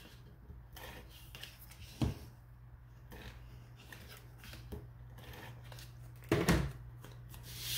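Paper-crafting handling sounds: an adhesive tape runner run along a cardstock panel, a short knock about two seconds in, a few faint ticks, and a brief louder rustle of the cardstock a little after six seconds, over a low steady hum.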